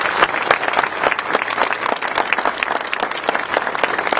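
Crowd applauding: many hands clapping in a dense, steady patter that holds at a constant level.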